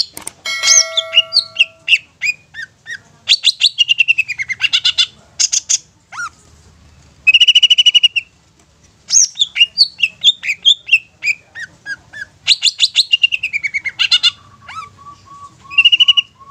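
Long-tailed shrike (cendet) singing a busy, varied song of quick chirps and falling whistles, broken twice by a harsh buzzing chatter. Near the end the song turns into a run of evenly spaced, lower notes.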